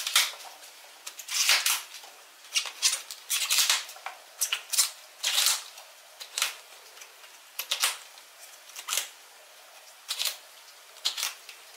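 Outer leaves of a raw globe artichoke snapped off one by one by hand: a string of short, crisp snaps at uneven spacing, roughly one a second. The leaves are being stripped until the pale inner leaves show.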